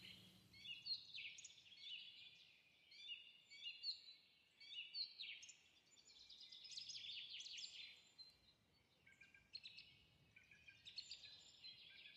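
Small birds chirping and twittering faintly, in short runs of quick high notes with pauses between.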